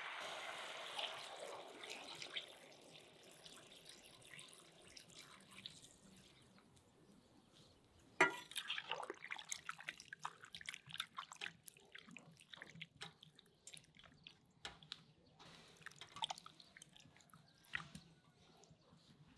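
Cubed beef heart frying in a cast-iron kazan. A hiss dies down over the first few seconds. From about eight seconds in there are many irregular crackles and pops, as the juices spit and a metal skimmer stirs the meat.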